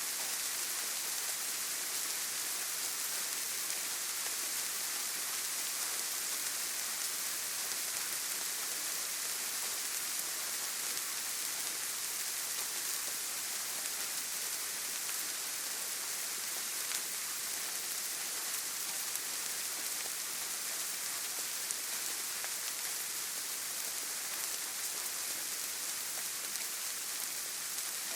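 Steady rain, an even hiss of many drops falling on a surface, with fine scattered patter of individual drops.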